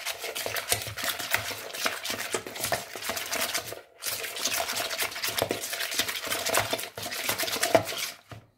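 A metal fork stirring fast in a plastic bowl, with rapid clicking and scraping as it beats grated cheese, egg and sour cream into a thick, wet mixture. A short break about four seconds in.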